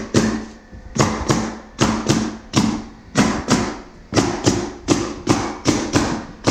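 Pneumatic coil nailer firing in quick succession, about three shots a second, each a sharp clack with a short tail. It is driving stainless nails through cement backer board into the subfloor.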